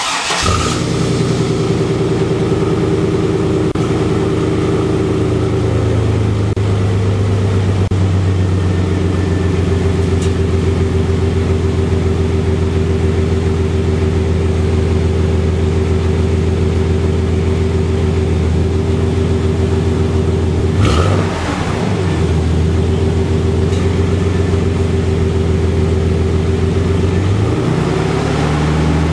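1999 GMC Sierra's 4.3-litre Vortec V6 starting cold and idling through a Gibson 3-inch cat-back exhaust, heard at the tailpipe. It catches abruptly at the start, runs at a raised cold idle, then settles to a lower idle after about six seconds, with a brief dip in the note about 21 seconds in.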